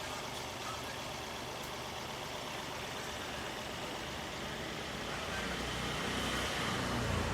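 Mahindra TUV300's three-cylinder diesel engine idling steadily with the bonnet closed, running quietly, which the mechanic reports as fully okay after the engine noise repair. The sound grows slightly louder over the last couple of seconds.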